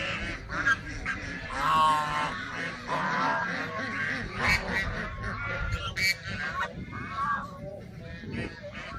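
Several geese honking, a quick run of repeated calls, some overlapping, with a few louder honks.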